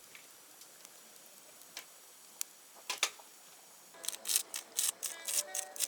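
Meat cooking in a hot pan: a few scattered pops, then rapid spitting crackles from about four seconds in.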